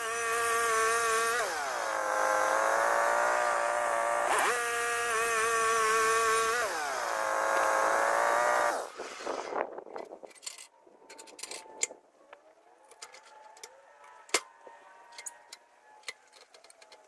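Wood-Mizer LT15GO portable band sawmill running, its engine and blade making a steady whine that sags in pitch twice and comes back up once in between. It shuts off about nine seconds in, and faint clicks and taps follow.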